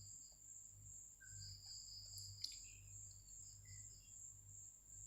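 Near silence: faint high-pitched insect chirping, typical of crickets, with a steady high trill, a few short chirps, and a low hum underneath.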